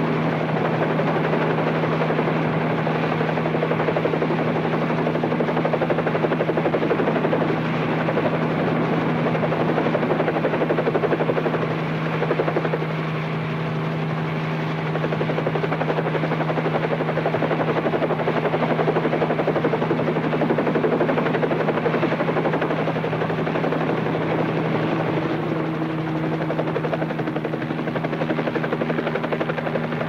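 Helicopter in flight: a steady drone of rotor and engine with a constant low hum. It dips slightly in loudness about twelve seconds in, then comes back up.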